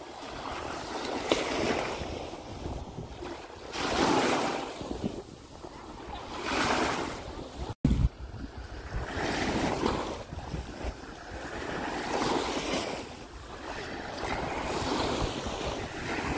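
Small Baltic Sea waves washing up onto a sandy beach, each wash swelling and fading every two to three seconds. The sound cuts out for an instant about halfway through.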